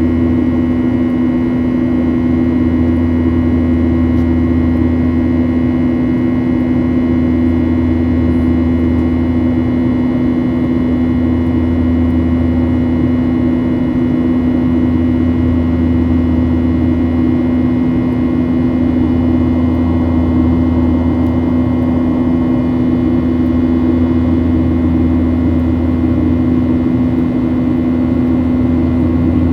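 Steady drone of a Boeing 737's jet engines in flight: a strong constant low hum over a rumble, with a faint high whine and an even rushing noise, unchanging throughout.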